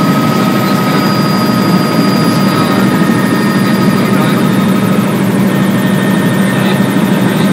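Helicopter in flight, heard from inside the cabin: a loud, steady drone of engine and rotor noise with a low hum. A faint high whine fades out about two-thirds of the way through.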